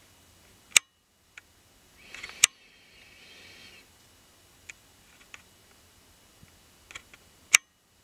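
Sharp, isolated clicks: three loud ones, about a second in, about two and a half seconds in and near the end, with a few fainter ticks between. A soft hiss-like rustle runs from about two to four seconds in.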